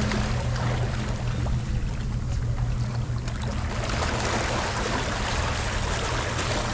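Steady rushing noise of water and wind, with a low engine hum that fades over the first three seconds.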